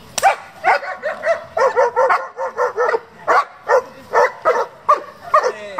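German Shepherd barking rapidly and repeatedly during protection (bite) work, about three sharp barks a second in an unbroken run. This is the agitated barking of a dog held back on a leash while it lunges at a decoy.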